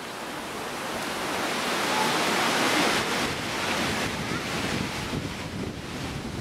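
A gust of wind rushing, swelling to a peak about two to three seconds in and then easing off.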